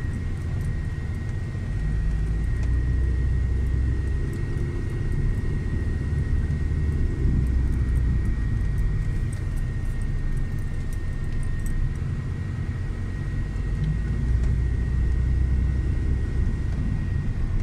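Car driving, heard from inside the cabin: a steady low rumble of the engine and tyres on the road, with a thin steady high whine over it.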